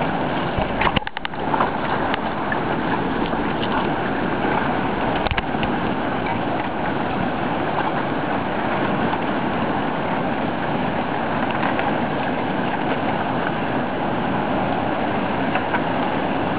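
Steady rushing of a large whitewater rapid, with a few sharp clicks and a brief dip about a second in.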